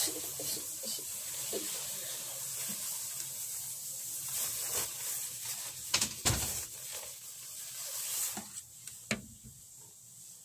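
Cloth rustling as a dark jacket is handled and pulled on, over a steady hiss. A few sharp knocks come through, the loudest about six seconds in and two more near the end.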